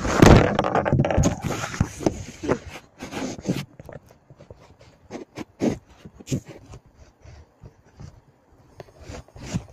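Mini Beyblade-style plastic spinning tops launched onto a plastic tray, clattering and scraping against each other and the tray. A loud hit at the start gives way to dense clatter for about three and a half seconds, then thins to scattered clicks as the tops slow and stop.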